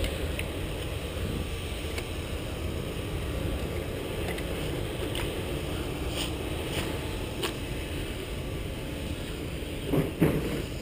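Steady wind rush on a GoPro's microphone, with faint scattered clicks and a couple of louder thumps about ten seconds in.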